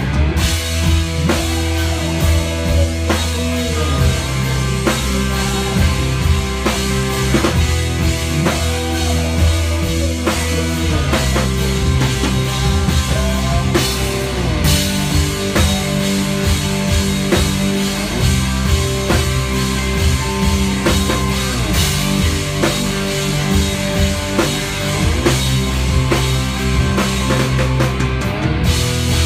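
Live country-rock band playing an instrumental passage: electric guitar lines with sliding, bending notes over a steady drum kit and bass.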